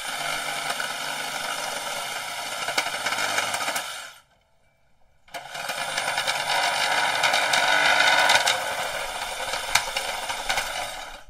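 DeWalt FlexVolt Advantage 20V MAX cordless reciprocating saw cutting through wooden pallet pickets. It makes two runs, the first about four seconds long, then a pause of about a second, then a longer run of about six seconds.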